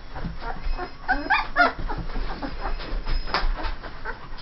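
Two-and-a-half-week-old Saint Bernard puppies whimpering in short high-pitched cries, several in quick succession about a second and a half in and another a little after three seconds.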